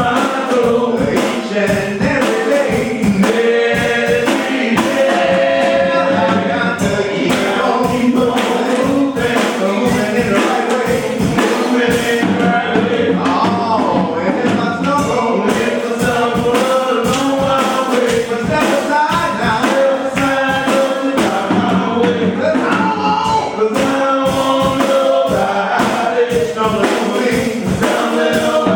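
Gospel song in a church: a choir singing with band accompaniment and a steady beat.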